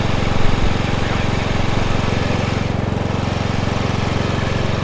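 Toro riding lawn mower's engine running steadily at a fast, even beat, with no change in speed.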